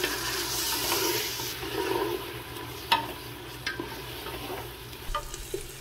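Beef and tomato masala frying in oil in a pot with a low sizzle, stirred and scraped with a wooden spatula, with a sharp knock of the spatula against the pot about halfway through and a few lighter taps later. This is the bhuna stage, frying the spices until the oil separates.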